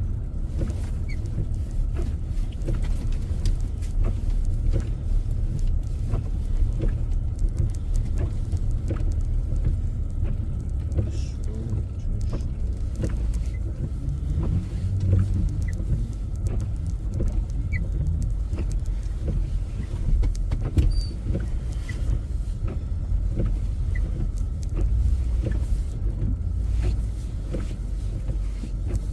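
Car driving through deep snow: a steady low rumble of engine and road noise inside the cabin, with many small scattered clicks and knocks.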